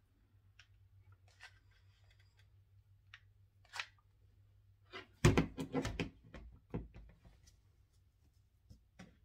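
Craft materials being handled and set down on a tabletop: faint scattered clicks and rustles, then a burst of knocks and rattles about five seconds in, the first knock the loudest, and one more knock a moment later.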